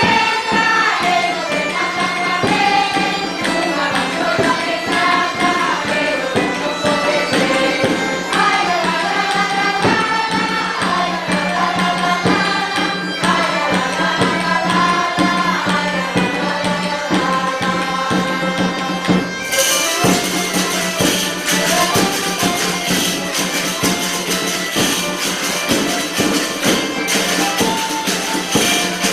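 Traditional bagpipe music: a melody played over a steady drone, with hand percussion. About twenty seconds in, a bright jingling tambourine comes in much louder.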